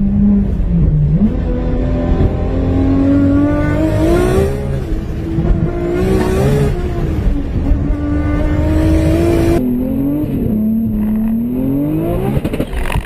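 Engine of a heavily tuned Toyota Supra under full-throttle acceleration at high speed, heard from inside the car. The engine note climbs steadily in pitch, dipping at gear changes. About ten seconds in, it cuts abruptly to a different car's engine, whose note drops and then climbs again under hard acceleration.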